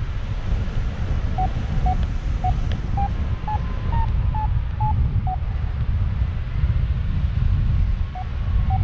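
Airflow rushing over the microphone of a flying paraglider, with a variometer beeping about twice a second for some four seconds, its pitch stepping up and then easing slightly, and two more beeps near the end.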